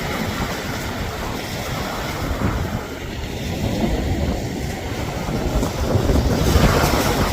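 Wind buffeting the microphone: a steady rumbling noise that swells in a gust near the end.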